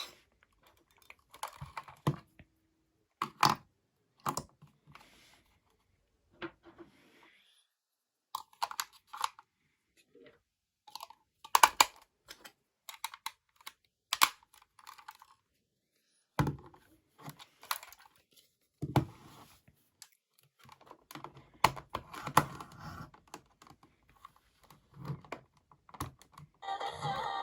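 Irregular clicks, knocks and short rattles of a portable radio being handled, its switches and knobs worked, with quiet gaps in between.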